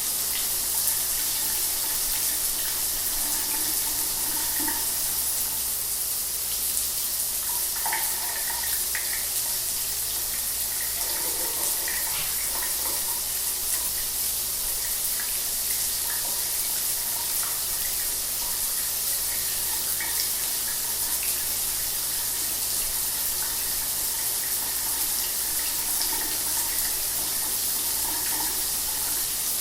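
Shower water running steadily, an even hiss of spray with small splashes breaking through.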